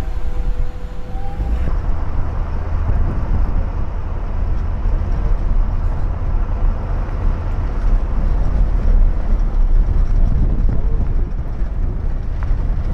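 Steady low rumble of a moving vehicle heard from inside, with engine and tyre noise while driving.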